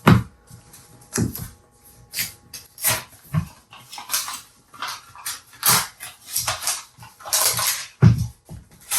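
Packaging being handled for an unboxing: irregular knocks, taps and clicks against a product box, with brief rustling swishes of its wrapping.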